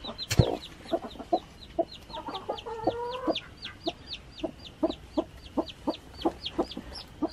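Broody hen clucking to her newly hatched chick with short low clucks and one longer drawn-out call about two and a half seconds in, while the chick peeps in a steady run of high peeps, about three or four a second.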